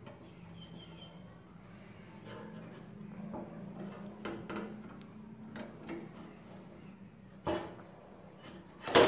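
Ring spanner working the rusted pivot nut of old pruning shears loose: the seized nut creaks as it turns, with light clicks of the spanner on the metal. A sharp metal knock comes about seven and a half seconds in, and a louder clank near the end.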